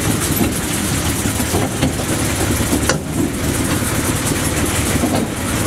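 Narrow-gauge train on the move, heard from aboard a carriage: a steady engine hum from the small internal-combustion locomotive mixed with wheels running on the rails, with a few sharp clicks about two, three and five seconds in.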